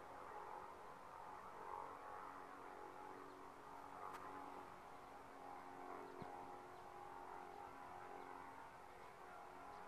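Faint, steady drone of a distant light plane's engine and propeller, with a single light click about four seconds in.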